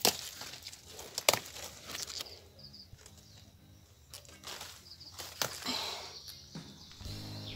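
Kale leaves snapped off their stalks by hand: several sharp snaps with leaf rustling in between, the loudest at the very start and about a second later. A bird chirps briefly a few times.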